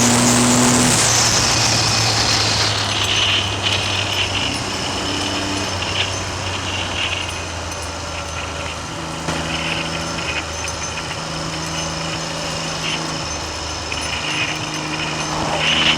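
Triumph Trident three-cylinder motorcycle engine running on the road, heard from a camera mounted on the bike. Heavy wind noise on the microphone dies away over the first few seconds. The engine then runs on at a steady low note that steps in pitch a couple of times.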